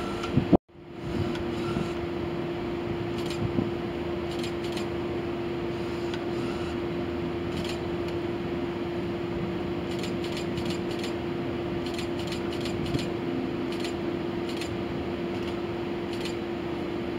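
A steady mechanical drone with one even, unchanging hum over a wash of outdoor noise. The sound cuts out completely for a moment about half a second in.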